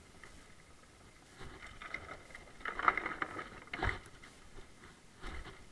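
Mountain bike rattling and clattering over a rough trail, picked up by a camera mounted on the handlebar: a run of clicks and knocks builds from about a second and a half in, with a couple of heavier thumps from bumps.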